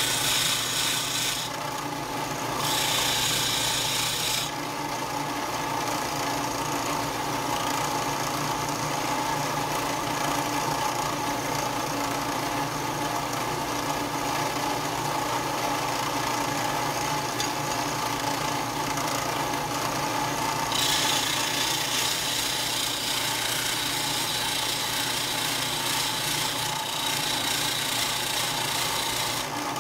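Bench disc sander running steadily while a die-cast metal truck part is ground down against its disc. The grinding rises each time the piece is pressed on: twice briefly in the first few seconds, then steadily for about the last nine seconds.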